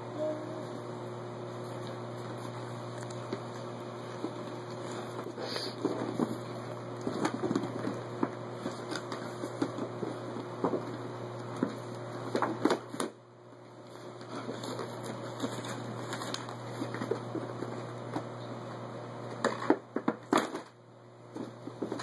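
Rustling and small clicks of gifts and packaging being handled, over a steady low hum, with a few louder clatters around the middle and near the end.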